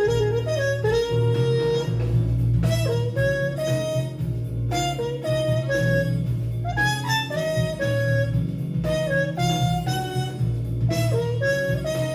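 Jazz-fusion band recording: a lead wind instrument plays a melody of held and sliding notes over a strong electric bass line.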